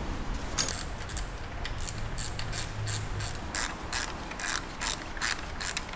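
Hand ratchet wrench clicking as it backs out the bolts of the last camshaft bearing cap. The clicks come in irregular runs, sparse at first and then several a second.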